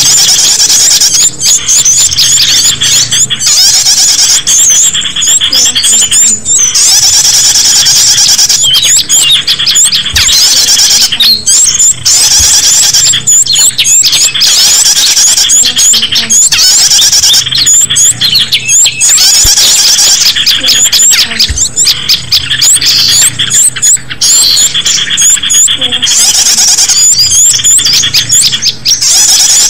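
Small-bird lure call recording (suara pikat): loud, shrill, rapid high-pitched chirping and squeaking in stretches of a few seconds, broken by brief gaps.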